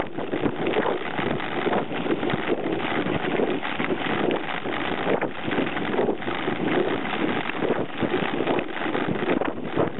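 Mountain bike ridden fast over a rough dirt trail: a continuous noisy rush of tyres on the ground, dense with irregular knocks and rattles from the bike. Wind buffets the bike-mounted camera's microphone.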